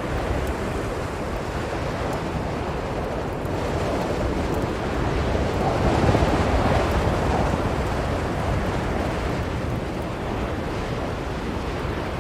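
Blizzard wind blowing steadily, swelling into a stronger gust about halfway through and then easing back.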